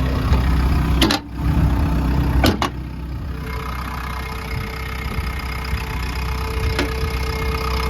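JCB JS160 NLC excavator's JCB diesel engine idling steadily, with a few sharp clicks about a second in, twice around two and a half seconds in, and once near the end. The idle is even, and the engine shows no blow-by.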